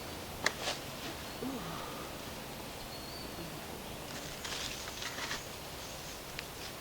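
Quiet garden ambience while sweet potatoes are dug up: a sharp click about half a second in, then soft rustling and scraping of soil and vines about four to five seconds in, with a faint bird chirp.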